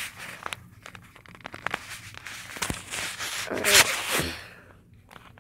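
Rustling and knocking handling noise close to the phone's microphone, with a short voice-like sound about three and a half seconds in.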